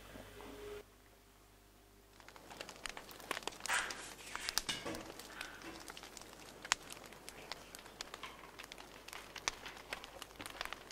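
Faint irregular crackling and ticking of a burning empty tea-bag paper tube as the flame works down it.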